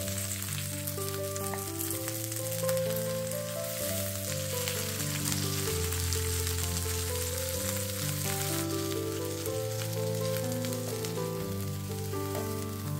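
Ground-beef-filled tortilla rolls frying in shallow oil in a nonstick pan: a steady crackling sizzle. Slow background music with held notes plays under it.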